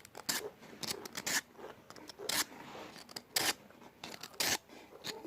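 Crisp sweet potato chips being bitten and chewed: about six separate sharp crunches, roughly a second apart.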